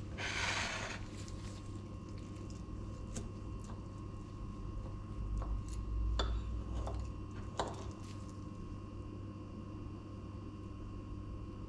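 A steel knife and fork cutting an omelette on a ceramic plate: a short rustle near the start, then a handful of separate light clicks of metal on the plate, over a steady low hum.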